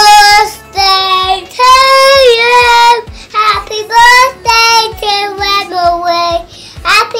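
A young child singing in a high voice: short sung phrases with a few held notes.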